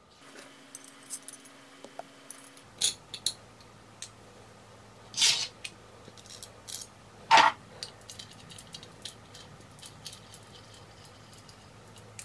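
Small metallic clicks and clinks of a steel hand vise being handled and put back together: the screw goes through the legs and the wing nut goes on. Two louder metal knocks come about five and seven seconds in.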